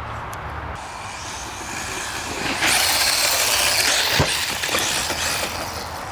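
Hosim X25 brushless four-wheel-drive RC truck driving, a steady hiss of motor and tyres that grows louder from about two and a half seconds in, with a sharp knock about four seconds in.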